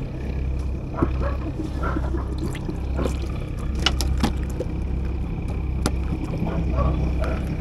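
Steady low rumble with a few sharp clicks and taps from fishing line and tackle being handled on a wooden boat.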